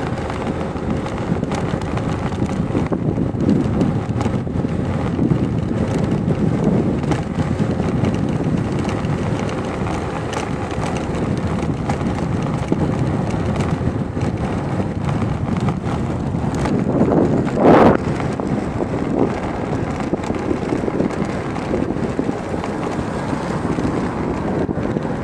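Wind buffeting the microphone over the steady rumble of a vehicle moving along a road, with one brief louder burst about three quarters of the way through.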